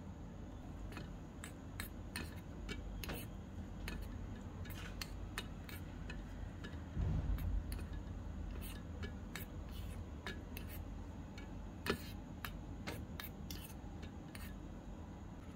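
Small metal spoon clicking and scraping against a miniature stainless-steel kadai while stirring diced vegetables, in irregular light ticks about one or two a second. A steady low rumble runs underneath, with a dull bump about seven seconds in.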